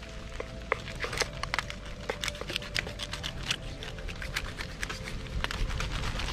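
Knife cutting out a snapper's back fin bones on a wooden cutting board: rapid, irregular sharp clicks and crackles, growing busier after about a second.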